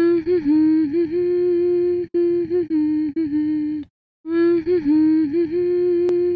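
A woman humming a slow, wordless tune: one phrase of held notes with little turns, a short break, then the same phrase again.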